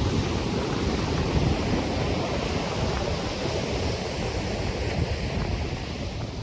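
Ocean surf breaking and washing ashore, with wind rustling palm fronds. The wash swells a little through the middle. The wind also rumbles on the microphone.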